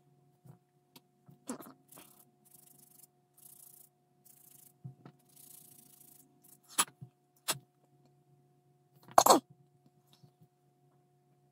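Plastic model-car wheel parts being handled and pressed together: scattered sharp clicks and taps, the loudest about nine seconds in, with soft rubbing between them, over a faint steady hum.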